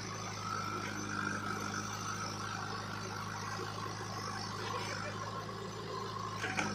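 JCB 3DX backhoe loader's diesel engine running steadily under load as the front bucket scoops and lifts a load of soil, with a brief rattle near the end.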